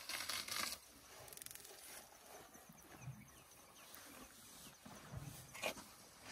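Leaves and branches rustling and crackling as a young African elephant tears at a leafy bush with its trunk to feed. The sound is loudest in the first half-second and in a sharp crackle near the end.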